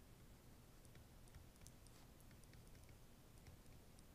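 Near silence with faint, irregular clicks of a stylus tapping on a tablet screen while writing by hand.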